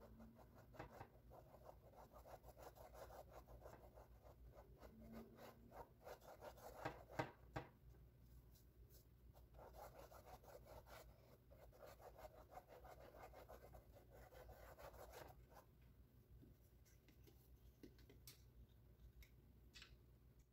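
Near silence with faint, irregular scratching of a paintbrush stroking across a stretched canvas, plus a few light taps; the strokes die away near the end.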